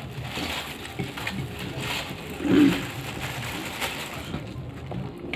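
Eating sounds: fingers mixing rice and cauliflower curry on a plate, with soft crackly chewing, and one louder low thump about two and a half seconds in.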